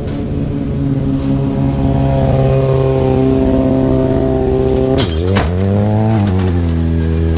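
Sport motorcycle engine held at steady revs through a wheelie, then about five seconds in a crash: a sudden clatter and scrape as the bike goes down, the engine note dipping and climbing back before running on steadily.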